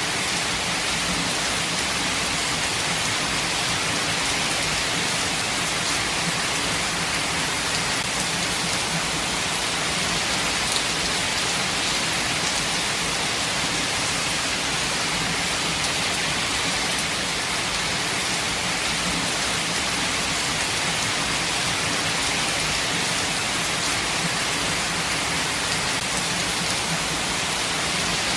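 Steady, even rain falling, a dense hiss of drops with a few faint individual drop ticks.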